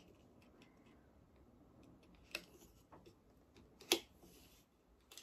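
Hands working at a stiff cardboard packaging sleeve: faint taps and scrapes, with two sharper clicks about two and a half and four seconds in.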